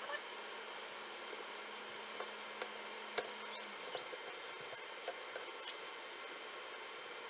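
Light scattered taps, clicks and brushing of a brush applying wood stain to small pine pieces and dipping into the stain can.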